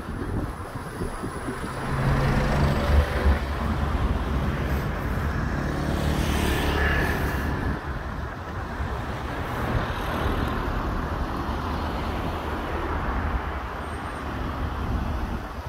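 Road traffic, with a motor vehicle driving past close by. Its low engine note comes in about two seconds in, the pass is loudest around the middle, and it then eases back into steady traffic noise.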